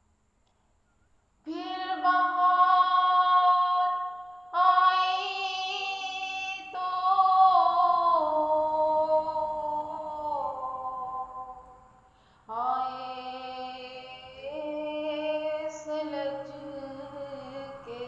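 A female voice sings a nazm unaccompanied, in long held notes that slide slowly downward. After about a second and a half of near silence, there are four phrases, the third and longest falling gradually in pitch.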